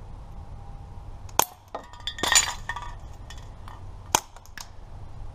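A Daisy Powerline 426 BB gun firing at empty spray cans. There is a sharp crack, then under a second later a metallic clatter as a can is hit and knocked over, and a second sharp crack about three seconds after the first.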